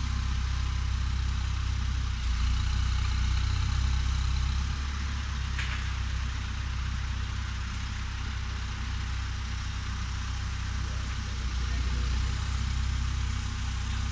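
Caterpillar telehandler's diesel engine running steadily with a low rumble, and a single short click about five and a half seconds in.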